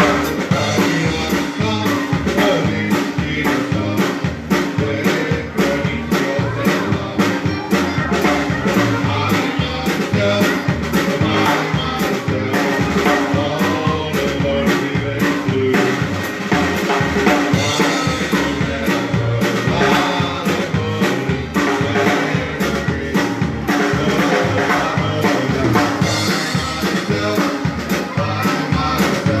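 Live Czech-style dance band playing, with a steady drum-kit beat under the instruments.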